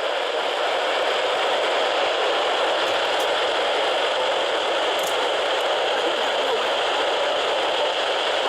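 Steady, even hiss of radio static from a receiver picking up no voice transmission.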